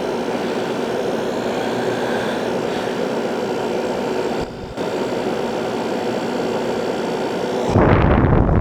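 Haier ESA410J-RGB window air conditioner running on high, with its compressor and fan making a steady rushing noise over a faint hum. The noise drops briefly about four and a half seconds in, and a loud low rumble comes in near the end.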